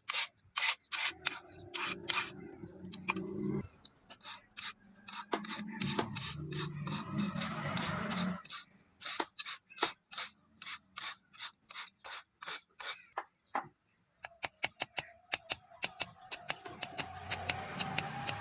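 Repeated short rasping strokes of a hand file on the steel blade of a leaf-spring machete, about two to three strokes a second, quickening toward the end.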